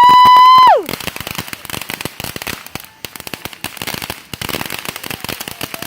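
Fireworks going off: a loud firework whistle holds one pitch, then falls away and stops under a second in, while a dense, rapid crackling of firecracker pops continues throughout.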